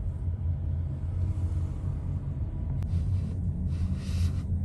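Steady low rumble of a car on the road, heard from inside the cabin, with a brief hiss about four seconds in.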